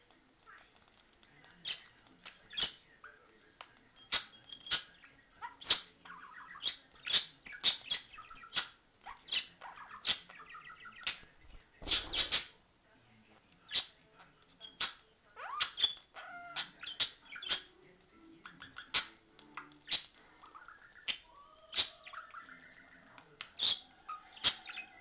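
Male budgerigar courting and mounting a finger, giving a soft warbling chatter broken by frequent sharp clicks. There is a brief flurry of wing flapping about twelve seconds in.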